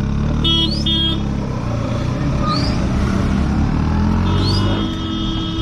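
Scooter engine running steadily while riding, with two short horn beeps about half a second in and a longer horn blast near the end.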